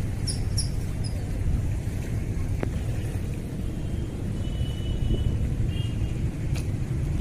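Steady low rumble of wind buffeting the microphone beside the flooded river. Two short high bird chirps come near the start, and faint thin bird whistles about halfway through.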